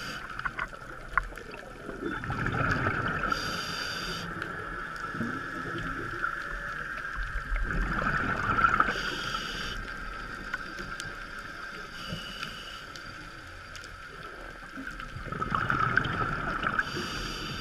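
Scuba divers breathing through their regulators, heard underwater through a GoPro housing. Three long rushes of exhaled bubbles come several seconds apart, with short hisses between them over a steady background hiss.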